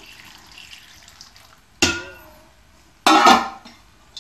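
Water trickling from a steel pot through parboiled potato fingers in a wire-mesh strainer, then two sharp metallic clanks of the steel pot with a ringing tail, the louder one about three seconds in.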